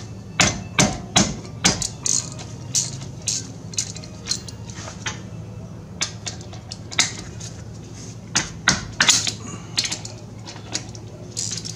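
Irregular sharp metallic knocks and clinks of hand tools working on a pickup's brake caliper bolts, densest near the start and again late on, over a steady low hum.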